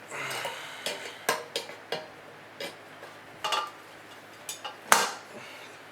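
Thin sheet steel of a surplus ammunition tin being worked open by hand: a scrape at the start, then a string of uneven metallic clinks and taps, the sharpest near the end.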